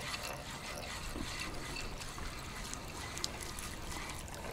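Water trickling and splashing at a steady, moderate level, with a couple of faint clicks.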